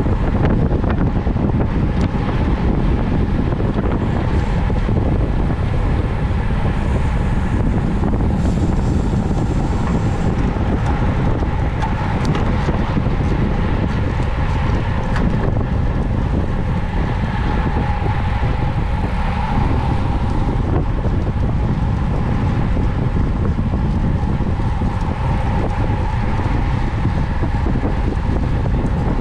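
Wind buffeting the microphone of a camera on a road bike at racing speed, loud and steady, with a faint steady hum underneath.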